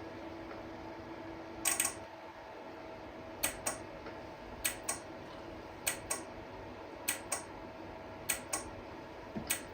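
Automotive turn-signal flasher cycling on a bench test, clicking in pairs (on, then off a quarter second later) about once every 1.2 seconds: the flasher is working and flashing its load. The clicking starts a little under two seconds in.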